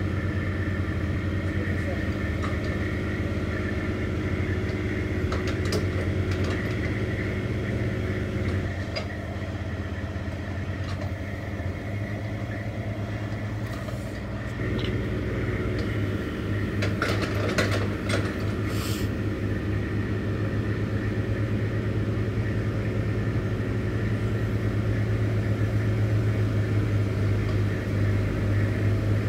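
Diesel engine of a crane truck running steadily while its hydraulic boom holds and swings a concrete septic tank. A few sharp clicks and knocks come about two-thirds of the way through.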